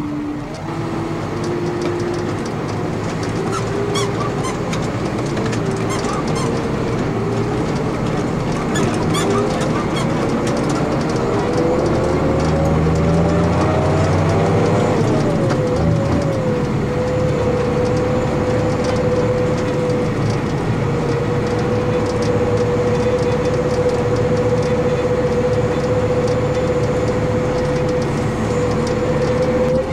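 An engine-driven machine running up in speed: its whine rises steadily for about fifteen seconds, dips briefly, then holds at a steady pitch.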